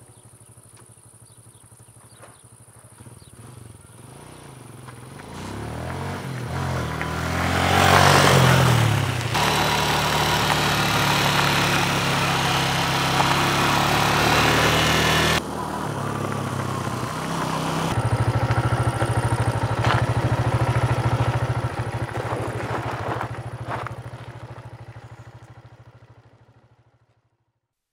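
Motorcycle engine running while riding, revving up with rising pitch about six to nine seconds in, under a loud rush of noise through the middle. It then runs steadily and fades out near the end.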